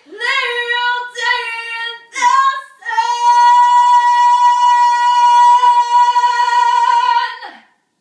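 A woman singing loudly: a few short sung notes, then one long high note held for about four seconds that slides down and stops near the end.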